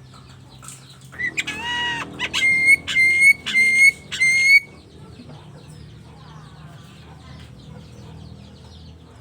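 Jalak starling making chicken-like calls in imitation of a hen: one drawn-out note falling slightly in pitch, then four short sharp notes about half a second apart. After that only quiet background sound remains.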